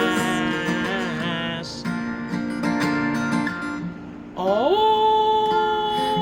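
Strummed acoustic guitar playing a song outro; about four seconds in the music drops away briefly, then a voice slides up into one long held note.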